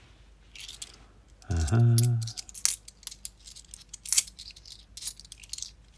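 £2 coins clinking against one another as they are handled and sorted in the hand: a scattering of irregular, sharp metallic clinks, the loudest about four seconds in.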